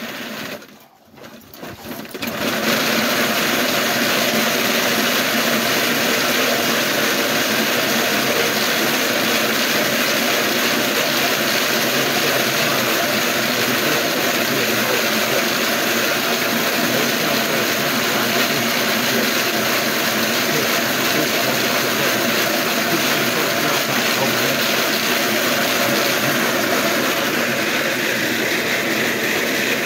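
Dog-powered wooden slat mill running under a running dog: a steady mechanical noise from the slats turning over the rollers, with a short drop-out about a second in.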